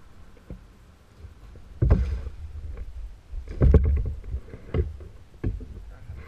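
Knocks and thumps on a plastic kayak's hull as a rod and a small crappie on the line are handled aboard: a loud thump about two seconds in, a cluster of knocks near the middle, then a few single knocks.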